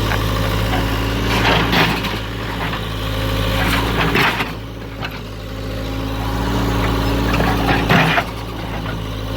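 Skid-steer loader's engine running steadily, with short noisy crashes about one and a half, four and eight seconds in, typical of the machine working scrap car bodies.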